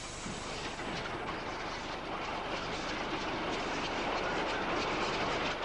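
Steam-hauled train running past, a steady rush of noise with the wheels clicking over rail joints, slowly getting louder.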